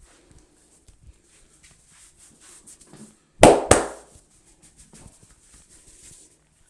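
Hands at work in a barber's head massage: soft rubbing and light tapping on hair and skin, then two loud, sharp hits about a third of a second apart, roughly halfway through.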